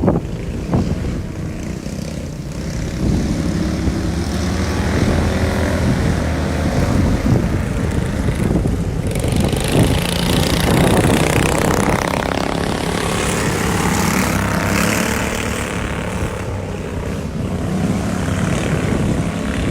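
Several racing ride-on lawn mower engines running at speed around the track. Their engine note gets harsher and fuller about halfway through, then eases off near the end.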